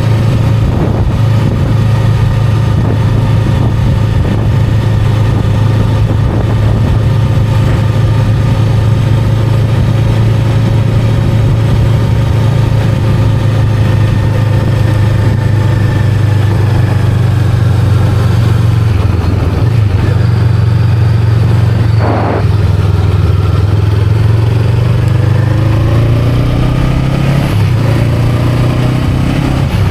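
Honda Rebel 500's parallel-twin engine and exhaust on the move. It holds a steady note, eases off with a falling pitch through the middle, dips briefly about two-thirds through, then pulls away with a rising pitch near the end.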